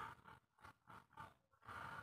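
Near silence, with faint soft pulses about three times a second.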